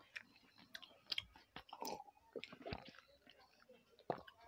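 Soft, close-miked chewing of food with wet mouth clicks and lip smacks.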